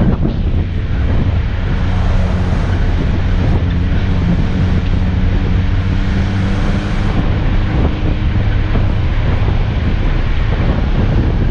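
A 4x4's engine running steadily as it drives down a gravel track, with tyre and road noise and wind buffeting the microphone.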